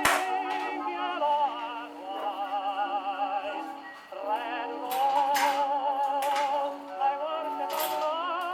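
Early acoustic-era gramophone recording of a singer with heavy vibrato over accompaniment, its sound thin and cut off in the treble. A few sharp clicks or knocks cut across it, near the start and again from about five seconds in.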